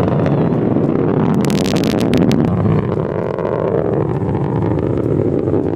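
Distant rocket launch rumbling: a steady deep rumble from the rocket's engines during ascent, with a short spell of sharp crackling about a second and a half in.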